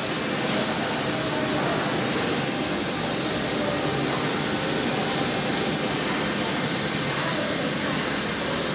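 CNC router spindle running with its long end mill cutting into a styrofoam block, giving a steady, even noise that does not change.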